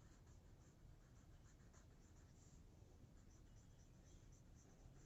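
Near silence with faint, irregular scratching strokes of someone writing.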